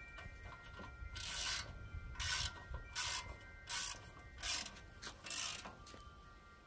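Ratchet wrench clicking in six short strokes, about one every 0.8 s, as a bolt on a generator's frame is tightened by hand.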